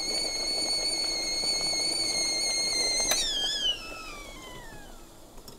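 Stovetop kettle whistling at the boil with a steady high tone. About three seconds in there is a click, then the whistle slides down in pitch and fades out.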